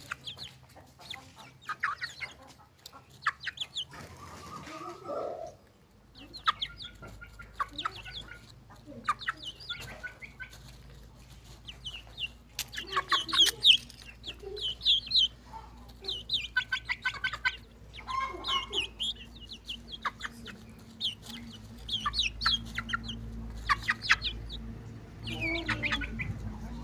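Young Aseel chickens clucking and calling with many short, high calls in quick succession while they feed. A low steady hum runs underneath from about six seconds in.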